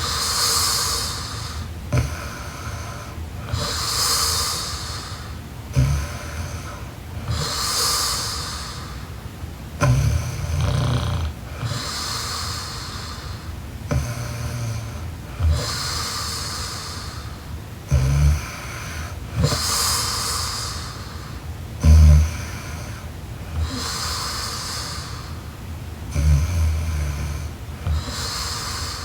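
A sleeping young woman snoring steadily, about one breath every four seconds: a low rattling snore alternating with a breathy rush of air.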